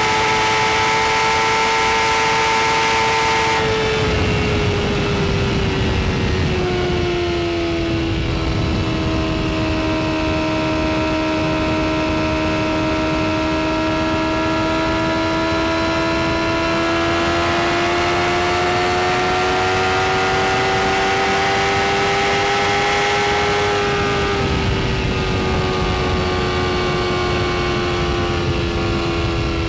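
BMW S1000RR's inline-four engine running at high revs at speed, with heavy wind rush. Its note glides down about four seconds in, climbs slowly for about fifteen seconds, then dips slightly near the end.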